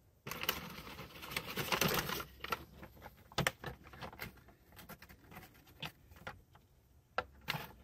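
Butcher paper wrapped around a smoked brisket crinkling and rustling as it is pulled open, densest for the first couple of seconds. Scattered light crackles and clicks follow.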